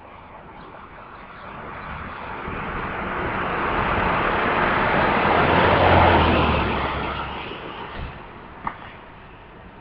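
A vehicle passing by: its rushing noise and low rumble swell gradually, peak about six seconds in, then fade away.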